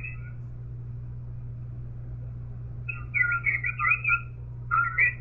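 Ham transceiver receive audio on 10-metre sideband: a steady low hum under faint band noise, then from about three seconds in, and again near the end, a sideband voice signal coming through thin, high and wavering, as it does when it is not quite tuned in.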